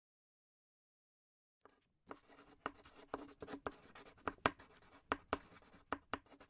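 Pen writing on paper: a run of quick, scratchy strokes with sharp ticks, beginning about two seconds in.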